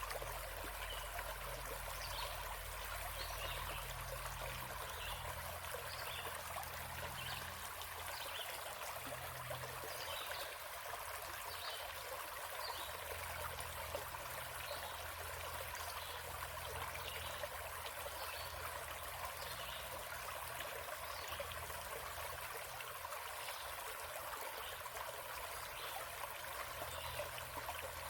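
Small forest stream flowing steadily over rocks, a continuous trickling and babbling.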